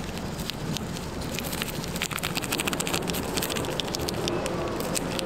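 Crinkling plastic packet of bonito flakes being opened and shaken out over the food: a dense, irregular run of small crackling ticks.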